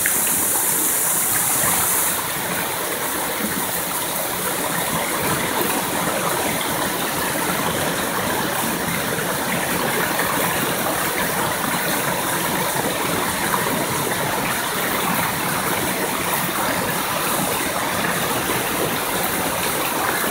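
Mountain stream pouring over a small waterfall and rocky cascade into a pool: a steady rushing of water. A brighter hiss on top cuts off about two seconds in.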